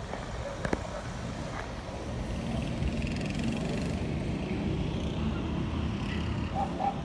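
Steady low rumble of city traffic from the street below, with a single sharp click a little under a second in.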